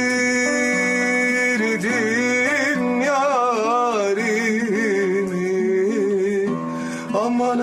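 A man singing a slow Turkish folk song to acoustic guitar, holding long, wavering notes, with a short break near the end.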